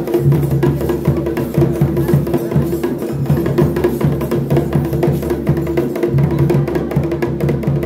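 Rapid drumming with a steady held tone running under it throughout.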